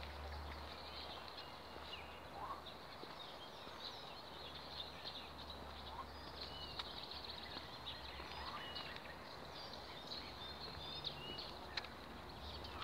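Small birds chirping and singing, with many short, scattered calls, over a steady low rumble.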